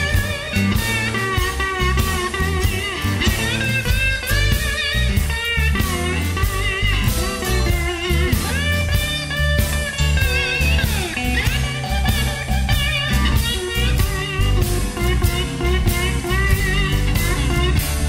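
Blues-rock instrumental music: guitar playing bending, wavering notes over a steady drum beat.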